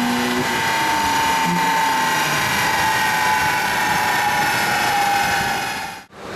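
Toyota 86's 2.0-litre flat-four running at high revs on a chassis dynamometer, a steady high-pitched whine that sinks slowly in pitch as the revs ease off. It cuts off abruptly near the end.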